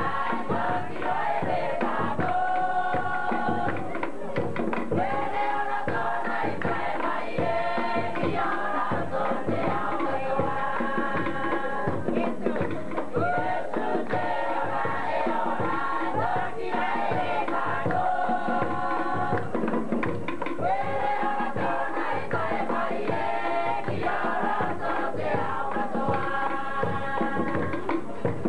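Cook Islands drum-dance music: a group of voices singing held, chant-like phrases together over fast, steady drumming, from an old VHS camcorder's microphone.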